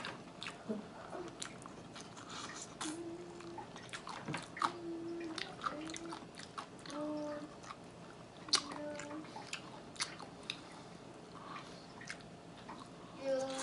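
A person chewing and biting buffalo chicken wings close to the microphone: many small, sharp, wet mouth clicks and smacks, with several short steady hums in between.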